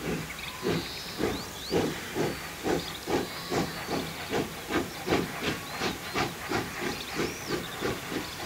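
Pt47 steam locomotive pulling away with its train, its exhaust chuffing in an even beat that quickens from about two to about three beats a second as it gathers speed.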